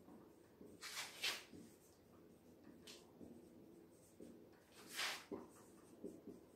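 Marker pen scratching on a whiteboard as words are written, with a few sharper squeaky strokes, the loudest about a second in and again about five seconds in.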